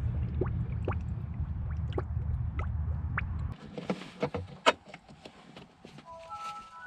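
Coolant bubbling and gurgling in a spill-free funnel on the radiator filler neck, over a low steady rumble. About three and a half seconds in this cuts to clicks and knocks as a handheld scan tool is plugged into the OBD port, followed near the end by a few short electronic beeps at different pitches.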